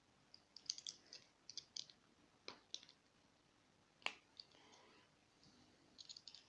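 Faint small clicks and ticks of lock parts being handled while a lock is taken apart, in quick clusters, with two sharper taps about two and a half and four seconds in.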